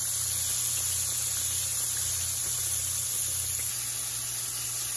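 Battered chicken drumsticks and wings deep-frying in hot vegetable oil in a skillet: the oil bubbles around the pieces in a steady sizzling hiss, about five minutes into the fry.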